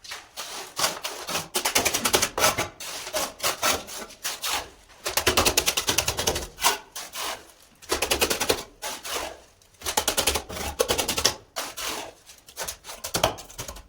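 Rapid scraping and rubbing strokes of a hand tool on a hard cement surface, in bursts of one to three seconds separated by short pauses.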